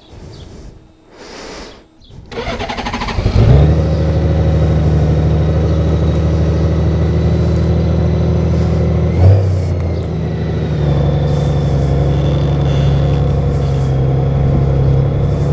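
2014 Honda Valkyrie's 1832 cc flat-six engine cranked by the starter, catching a little over two seconds in, then idling steadily, with one brief rise in revs about nine seconds in.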